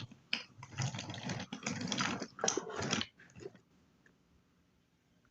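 Wooden toy engine and trucks clattering along wooden railway track, a quick run of irregular clicks that stops about three seconds in.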